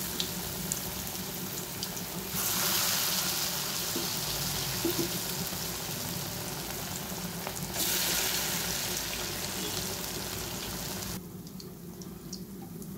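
Chana dal fritters (paruppu urundai) deep-frying in hot oil in a steel kadai: a steady sizzle and bubbling. It grows louder about two seconds in and turns quieter near the end.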